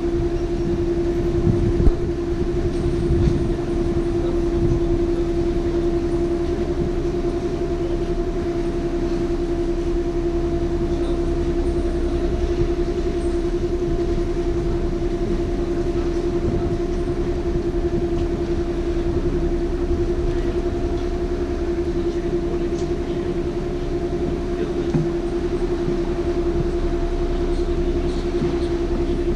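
Canal tour boat's engine running steadily, a constant droning hum over a low rumble.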